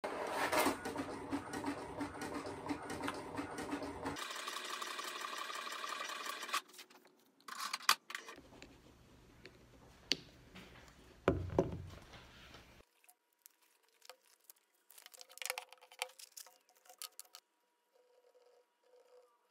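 Espresso machine buzzing steadily for about four seconds, then a thinner, higher drone that stops about six and a half seconds in. After that there are only scattered soft clicks and one dull knock.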